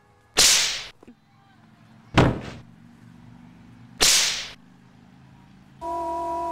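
Three whip-like swishing hits about two seconds apart, each dying away within about half a second, as fight blows are swung. Near the end a steady pitched drone with several tones at once starts up.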